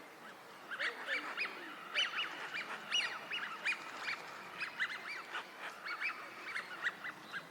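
A flock of Eurasian wigeon calling: drakes' whistled "whee-oo" calls, many overlapping, each a quick upward sweep that drops away.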